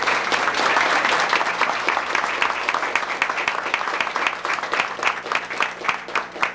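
Audience applauding at the close of a speech: dense clapping at first that thins out into scattered single claps near the end.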